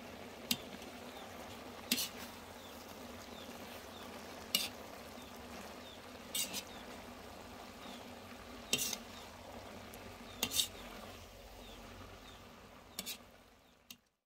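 Metal spatula stirring jackfruit cooking in coconut milk in a wide metal wok. Its edge clinks and scrapes sharply against the pan every second or two, over the steady low sizzle of the simmering pan.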